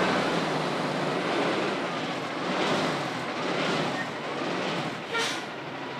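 Heavy Kenworth prime mover pulling a locomotive on a low-loader, its diesel engine and tyres running over steady wind noise on the microphone. A brief high-pitched squeak about five seconds in.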